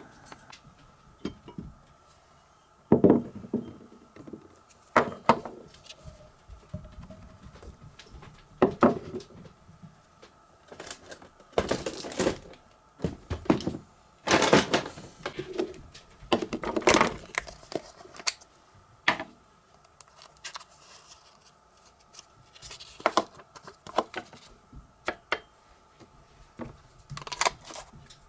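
Irregular knocks, clicks and clatter of an Aeropress coffee maker's plastic parts and a mug being handled and set down on a wooden counter, a dozen or so separate bursts with quiet stretches between.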